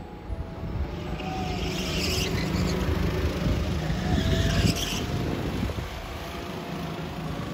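Go-kart engines running on a track, with karts passing by twice, louder about two and four and a half seconds in.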